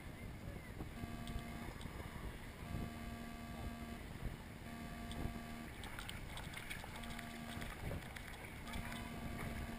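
Water sloshing and lapping around an inner tube drifting down a lazy river, with small splashes. A low, buzzy electronic beep sounds on and off about five times, roughly once every second or two.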